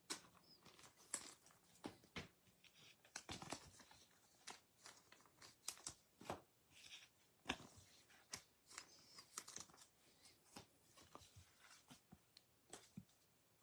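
Faint rustling and scattered soft clicks of baseball trading cards being handled, flipped through and sorted by hand.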